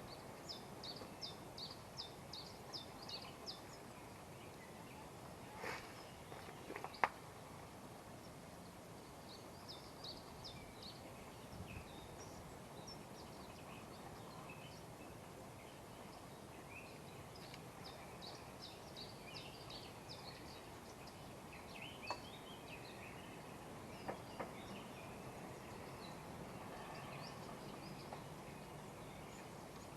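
Small birds singing in runs of quick, high, repeated notes over a steady outdoor hiss, with a few sharp knocks, the loudest about seven seconds in.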